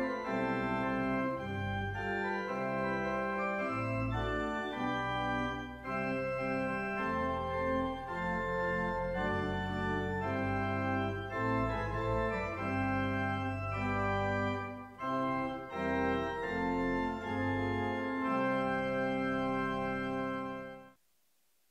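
Church pipe organ playing held chords over a moving bass line, cutting off abruptly near the end.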